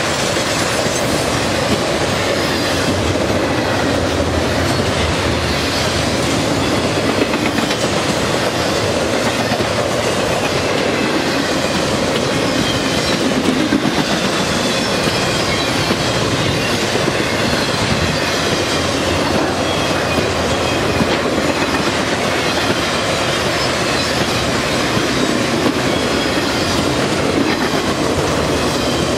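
A long freight train of trailers and containers on flatcars rolling past close by at speed: a steady, loud rumble of wheels on the rails that doesn't let up.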